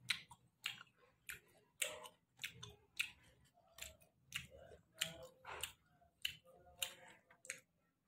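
A person chewing food close to the microphone: a steady run of sharp mouth clicks, about one every half to two-thirds of a second.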